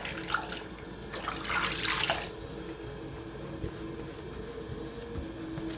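Hands being rinsed under a running sink tap, water splashing for about two seconds before it dies down, to wash retinol night treatment off the fingers before eye cream.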